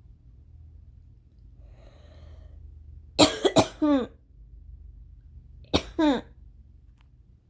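A woman coughing hard: after a faint inhale, a burst of three or four harsh coughs about three seconds in, then two more a couple of seconds later. It is part of a coughing fit she puts down to allergies.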